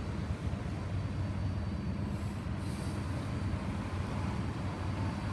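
Steady low hum of a vehicle or rail vehicle, with a brief faint hiss about two seconds in.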